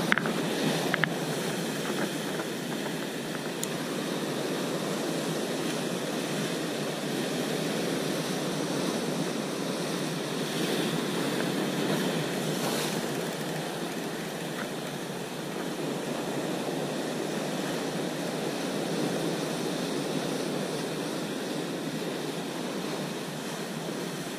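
Sea surf breaking and washing over rocks below, a steady rush of white water, with a few light handling clicks about a second in.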